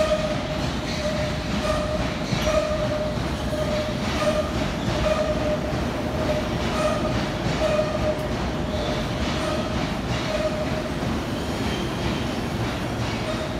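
London Underground S Stock train running into the platform with a steady rumble of wheels on rail. A squealing tone pulses about once a second over it and fades near the end.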